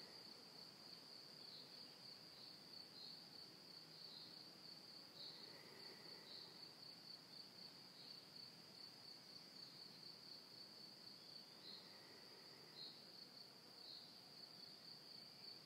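Faint, steady high-pitched trilling of crickets, running on without a break.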